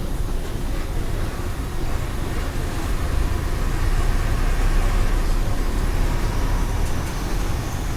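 Mercedes-Benz OF 1418 bus's diesel engine running steadily with a low rumble, and a faint high whine slowly rising over the last few seconds.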